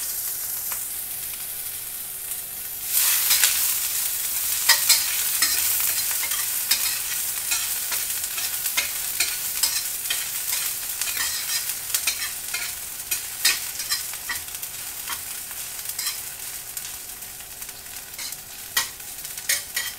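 Chopped onion sizzling in hot oil in a stainless steel wok, with a metal spatula scraping and clicking against the pan as it is stirred. The sizzle grows louder about three seconds in.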